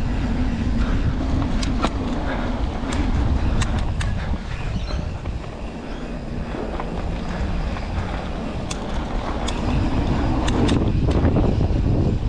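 Mountain bike riding a dirt singletrack: steady tyre rumble and wind buffeting the action-camera microphone, with scattered sharp clicks and rattles from the bike over bumps. It is a little quieter for a few seconds in the middle.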